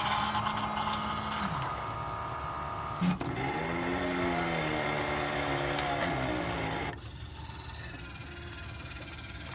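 Digital coffee machine running its brew cycle: a steady mechanical hum that stops about a second and a half in, a sharp click near three seconds, then a motor whose pitch rises and falls before cutting off around seven seconds in.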